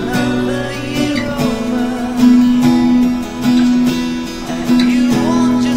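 Background music led by a strummed acoustic guitar.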